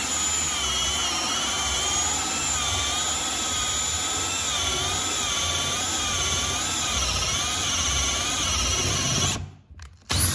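Makita cordless drill turning a hole saw through a wooden board, its motor whining steadily with the pitch wavering up and down as the saw bites. It stops about nine seconds in, with a short blip of the drill right at the end.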